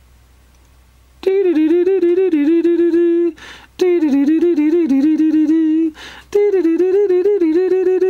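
A person humming a tune, starting about a second in, in phrases of a couple of seconds broken by audible breaths.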